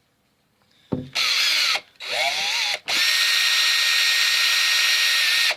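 Small cordless battery drill spinning a pipe cleaner to clean out a tobacco pipe's shank: two short bursts about a second in, the second rising in pitch as the motor spins up, then a steady run of about two and a half seconds that cuts off suddenly.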